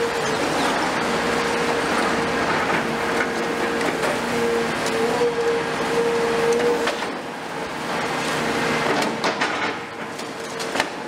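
Caterpillar 336F long-front demolition excavator, Cat C9.3 diesel, working its hydraulic crusher jaw into a concrete floor slab, with a steady whine that cuts out and returns. In the last few seconds there are sharp cracks and crunches of breaking concrete.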